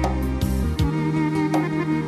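Instrumental background music: sustained melodic notes over a slowly changing bass line, with a beat about every three-quarters of a second.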